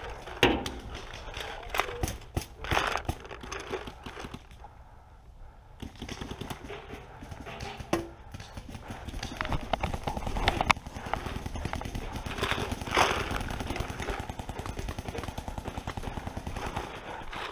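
Footsteps and body movement of a player scrambling and running through wet grass and mud, with irregular sharp knocks and scuffs close to the head-mounted camera. Near the end the footfalls come quick and even, as in a run.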